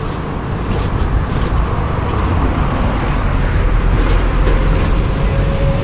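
Steady low rumble of a large motor vehicle running, heavy in the bass, with a faint steady whine entering about four seconds in.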